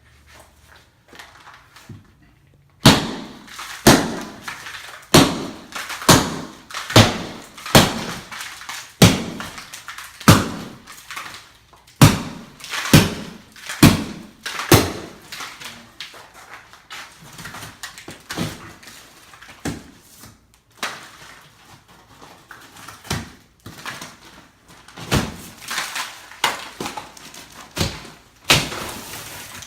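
Hammer blows breaking up a wall during demolition: sharp, heavy strikes starting about three seconds in, roughly one a second for a dozen seconds, then more scattered, with a quicker run of blows near the end.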